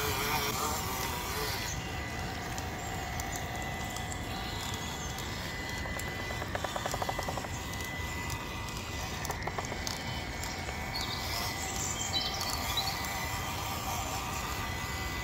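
Traxxas TRX4M 1/18-scale crawler's small electric motor and geared drivetrain whirring as it crawls through a mud bog on Injora Swamp Claw tyres, with short clicks and a brief rattle about halfway through.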